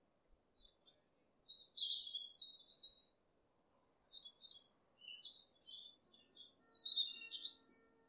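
Small songbirds chirping in quick runs of high, short notes, in two spells a second or so apart. Faint background music comes in near the end.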